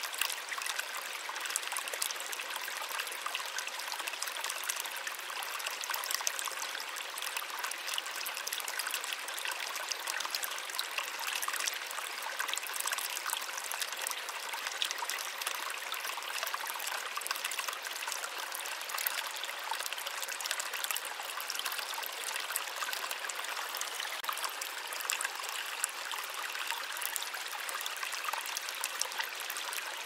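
Running water: a steady rush of splashing and trickling, with no deep rumble.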